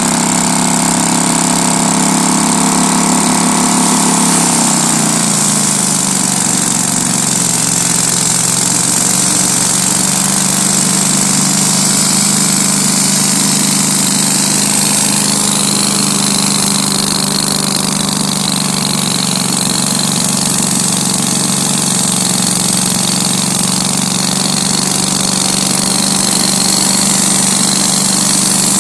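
Engine of a homemade band sawmill running steadily; its pitch drops about five seconds in and then holds steady.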